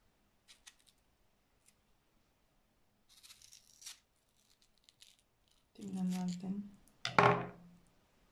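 A knife cutting through a hand-held slice of watermelon, a short scraping cut about three seconds in, after a few light clicks. Near the end a woman's voice sounds briefly twice, the loudest sounds here.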